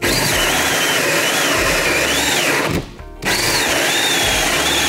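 DeWalt cordless drill in its high-speed mode driving a 3-inch hole saw into a wooden board: a loud cutting run with a whine that wavers up and down in pitch. It stops briefly a little past halfway, then starts again. The drill is starting to torque out under the pressure.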